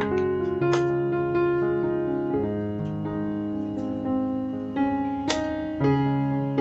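Background piano music: slow, sustained chords and single notes.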